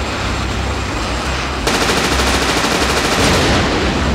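Cartoon sound effect of a long burst of rapid machine-gun fire that starts about a second and a half in over a steady low rumble and fades out near the end: an enemy fighter shooting at the rocket and hitting it.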